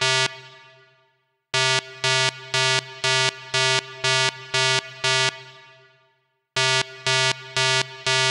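Game-show suspense 'waiting' sound effect: a synthesized pitched beep pulsing about three times a second in runs of around a dozen. Each run ends in a fading ring-out and a brief silence before the pulses start again.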